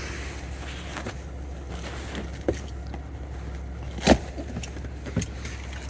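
Steady low hum of a 2013 Chevrolet Avalanche's 5.3-litre V8 idling after a remote start, heard from inside the cab. Several short clicks and knocks from handling inside the cab, the loudest about four seconds in.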